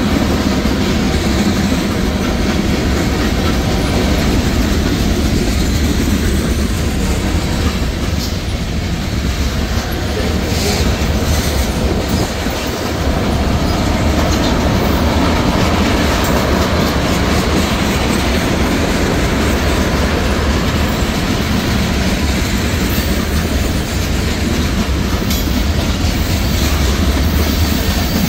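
Cars of a mixed freight train (tank cars, gondolas, hoppers) rolling past close by: a steady, loud noise of steel wheels running on the rails.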